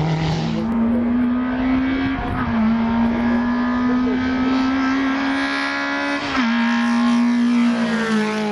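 Rally cars in a hill climb driven at high revs. The engine note holds fairly steady, with sudden steps in pitch about half a second in, around two seconds, and at about six and eight seconds.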